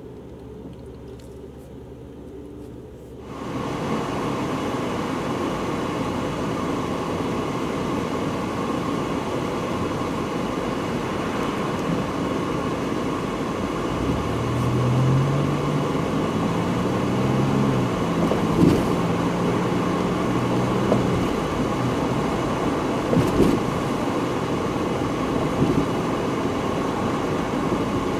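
Car interior sound in traffic: a low steady engine hum, then abruptly louder, even road and engine noise as the car drives. Around the middle the engine's pitch rises and holds as it accelerates, with a few light knocks.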